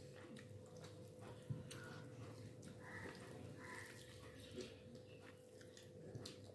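Faint eating sounds of rice and curry being mixed by hand on a plate: soft wet squishes and small clicks, with a sharper click about one and a half seconds in, over a faint steady hum.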